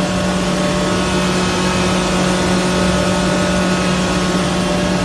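Sichuan pepper powder grinding machine running at a steady speed: a loud, even motor hum with a constant rushing noise over it.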